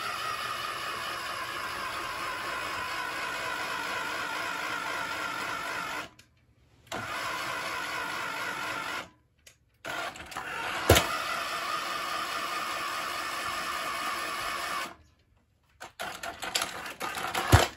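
Electric motor and gears of a toy-grade RC car whining steadily as it drives in three runs, stopping and starting between them. A sharp knock about 11 s in and a cluster of knocks and clatter near the end are the car bumping into things.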